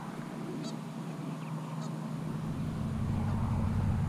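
Short, scattered bird calls over a low engine drone that grows steadily louder through the second half.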